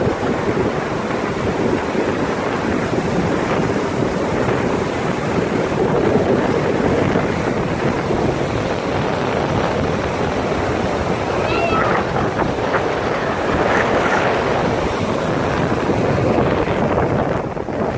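Rough sea surf breaking and washing up a stony beach, a steady rushing noise, with wind buffeting the microphone.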